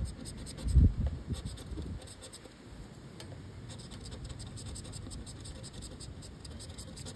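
A scratch-off lottery ticket having its coating scratched away, a quick run of short scratching strokes. A brief low rumble comes about a second in.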